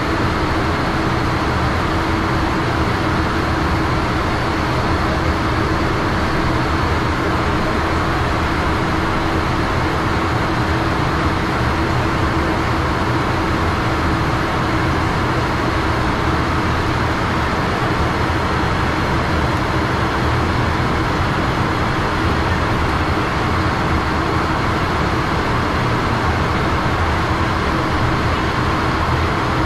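Steady flight-deck noise of a Learjet in flight: the rush of air past the cockpit and the hum of its rear-mounted turbofan engines, with a steady low tone running underneath.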